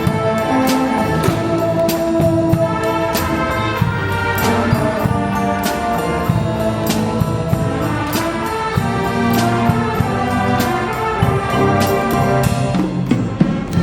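Youth wind band playing live: brass and woodwinds with drums keeping a steady beat.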